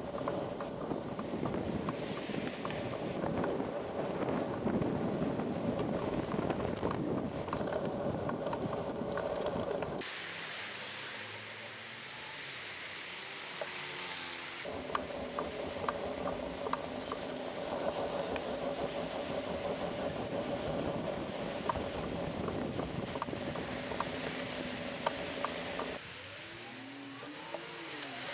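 Street noise picked up by a camera on a moving bicycle: wind on the microphone and road noise, with motor traffic passing and scattered light clicks and rattles. The sound changes abruptly a few times, as between joined clips, and is quieter in two short stretches where an engine's pitch rises and falls.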